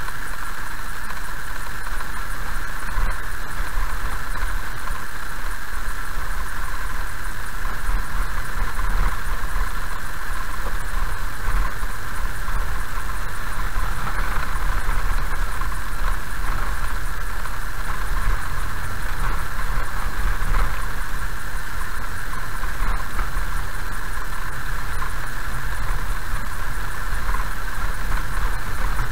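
Car driving slowly on a rough gravel and dirt road, heard from inside the cabin: a steady low rumble of tyres and engine with a constant hiss over it.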